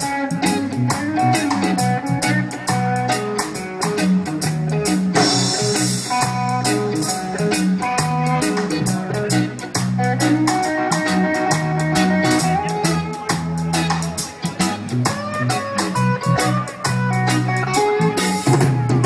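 Live reggae band playing an instrumental passage with no singing: guitar over bass guitar and drum kit, with cymbal strokes keeping a steady beat.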